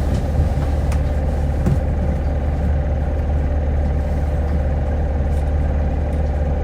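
Hino 2SG-HL2ANBP city bus heard from inside the passenger cabin, its engine running with a steady low drone and a few faint rattles and clicks.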